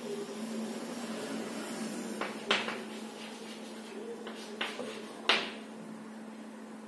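Chalk writing on a blackboard: short scratchy strokes and taps of the chalk, the sharpest about two and a half and five seconds in, over a steady low hum.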